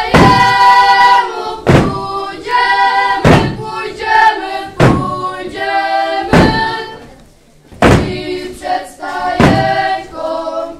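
A group of children singing a Polish Christmas carol together, with a heavy thud on the wooden stage floor about every second and a half that keeps the beat. The singing breaks off for a moment about seven seconds in.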